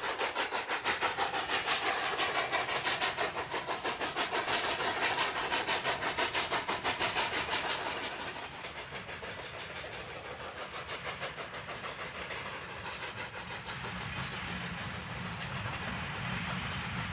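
Narrow-gauge steam locomotives working a freight train, their exhaust chuffing in a quick, regular beat with steam hiss. About eight seconds in, the chuffing drops away to a quieter, steady rumble of freight cars rolling past.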